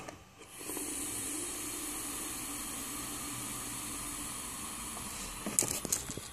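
E-cigarette box mod firing its atomizer coil during a long draw, a steady hiss as vegetable glycerin is vaporised and air pulled through, lasting about five seconds. A few short knocks of handling follow near the end.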